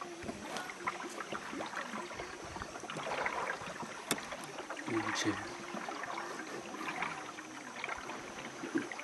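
Paddle strokes dipping and splashing through calm water as a long narrow boat is paddled along, with water lapping around the boat, and one sharp knock about four seconds in.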